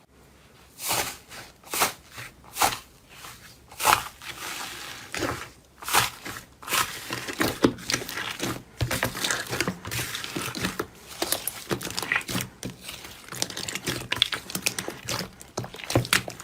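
Slime being pressed and worked by hand, giving crackly, crinkling pops. The first few presses come about a second apart, then the crackling turns quicker and denser, and it cuts off at the end.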